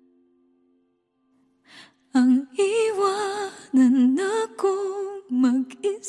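A pause of near silence, then about two seconds in a woman's voice starts humming a wordless melody in short phrases with a strong vibrato.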